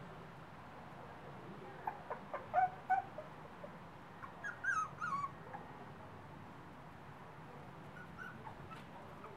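Young Tibetan Terrier puppies whimpering in short, high-pitched squeaks: a few about two seconds in, a denser run about five seconds in, and a faint one near the end.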